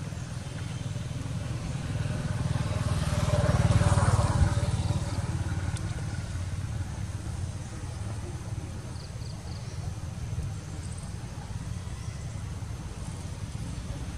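Low engine rumble of a passing motor vehicle, swelling to its loudest about four seconds in and then easing back to a steady low drone.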